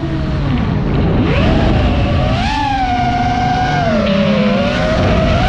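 FPV quadcopter's electric motors whining, the pitch sweeping up about a second in as the motors speed up, then holding and slowly sinking.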